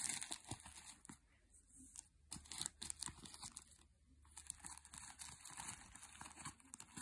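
Paper squishy's paper casing crinkling and rustling as filling is pushed into it by hand, a run of irregular faint crackles.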